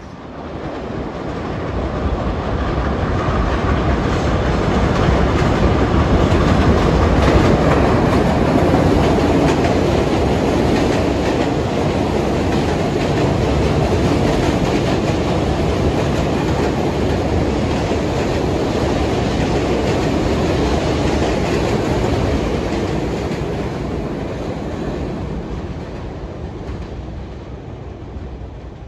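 New York City subway train running past on the rails, its wheels clacking over the rail joints; the noise builds up over the first few seconds, holds loud and steady, then fades away near the end.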